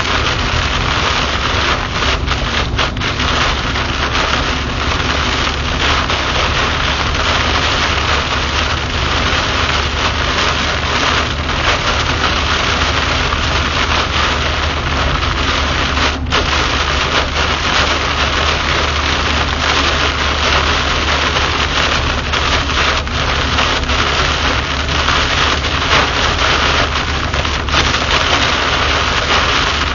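Heavy rain beating steadily on a car's windshield and roof, heard from inside the moving car, over a low, steady rumble of tyres on the wet road.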